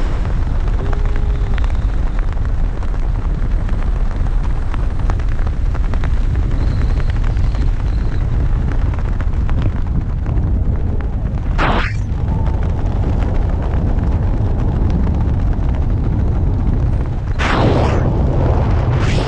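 Wind buffeting an action camera's microphone during parachute canopy flight: a steady, heavy low rumble, with a few brief harsher gusts of hiss about twelve seconds in and near the end.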